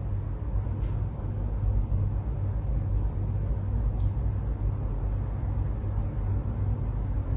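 A steady low rumble of background noise, with a few faint ticks.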